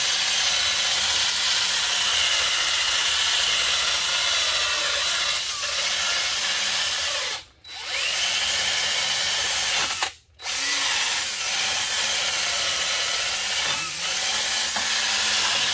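Cordless drill spinning a wire wheel brush against the rusty steel caliper bracket slides, scouring off rust so the brake pads can ride freely. The drill's motor hums under a steady scratchy hiss and stops briefly twice about halfway through.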